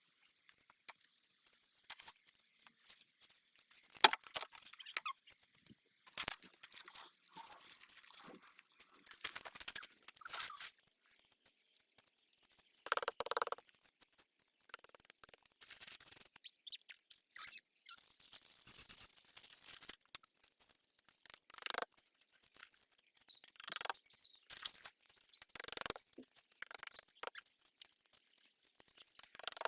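Intermittent rustling, scraping and a few sharp knocks from hands-on garden landscaping work, with no steady rhythm.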